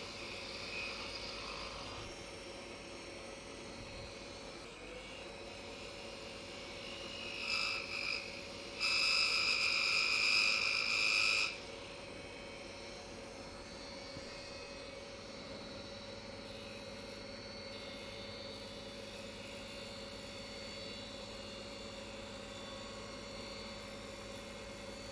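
Wood lathe running with a steady motor hum while a small maple blank is turned down to size. About nine seconds in, a louder high-pitched whine lasts two or three seconds.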